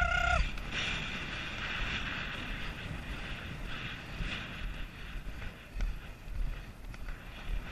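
Wind buffeting a helmet camera's microphone as the horse gallops, a steady low rushing noise. A steady tone cuts off about half a second in, and a few uneven thuds come in the last two seconds.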